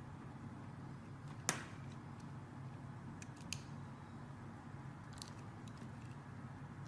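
Knife cutting into a bar of soap: one sharp crack about a second and a half in, then a few fainter clicks, over a low steady hum.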